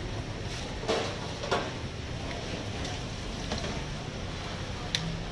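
Busy market-stall background noise with a steady low hum, broken by a few short clatters of handled utensils and trays: one about a second in, another half a second later, and a sharp click near the end.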